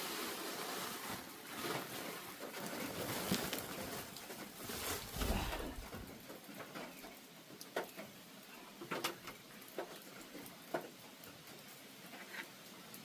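Rain pattering, with single drops ticking sharply on a surface at scattered moments in the second half. A low knock about five seconds in stands out over the hiss.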